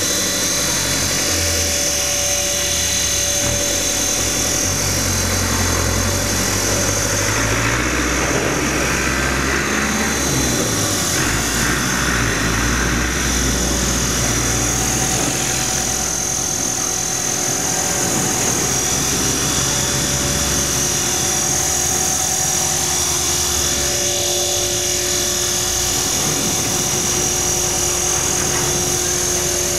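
Align T-Rex 450 XL electric RC helicopter flying: a steady high whine from its motor and gears over the whirr of the rotor blades, the pitch shifting a little as it manoeuvres.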